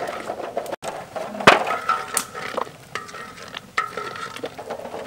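Duck eggs clicking against one another and against a metal tray as they are lowered by hand into a large wok of boiling water, with irregular sharp knocks, the loudest about a second and a half in, over the hiss and bubbling of the water.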